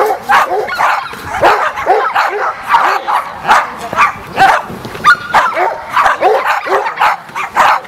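A dog barking over and over in quick succession, about two barks a second.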